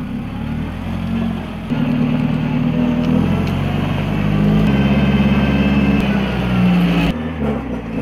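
Toyota forklift's engine running as it drives over snow, its pitch stepping up about two seconds in and again near five seconds, then dropping off sharply about seven seconds in.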